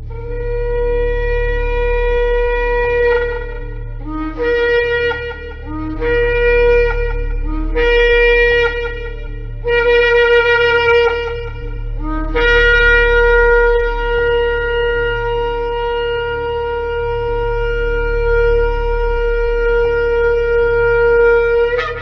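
Shofar blasts: a long blast, then four shorter blasts that each step up from a lower note into the main tone. A final blast is held for about ten seconds and breaks upward in pitch at its end.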